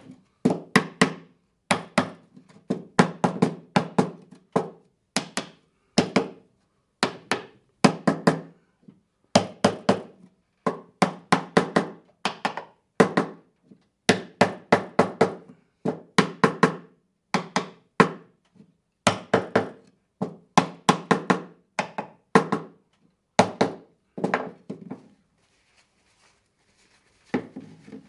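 Small hammer tapping the corners of a wooden mortise-and-tenon picture frame in quick runs of two to four sharp knocks, seating the tenons so the corner joints close up tight. The tapping pauses near the end, then comes one last short run.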